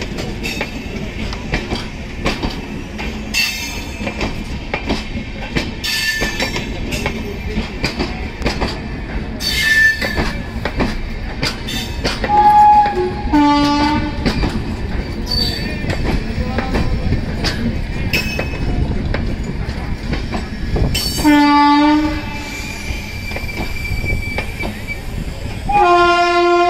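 LHB passenger coaches of an Indian Railways express rolling past on departure: a steady rumble, with a clack of wheels over a rail joint every two to three seconds as each coach goes by. Three short horn blasts sound, about 13 and 21 seconds in and again near the end.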